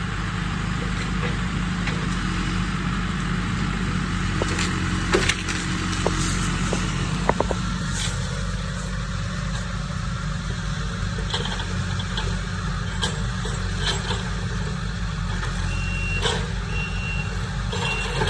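Diesel engine of a Kubota SVL75-2 compact track loader running steadily while clearing land, with scattered sharp cracks and knocks. A reversing alarm beeps near the end.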